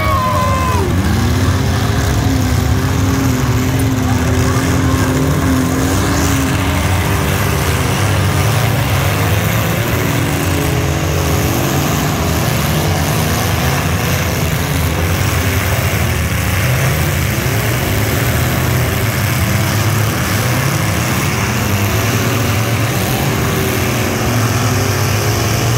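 Engines of many compact demolition derby cars running and revving at once, a steady loud din whose pitch rises and falls as the drivers push each other around the arena.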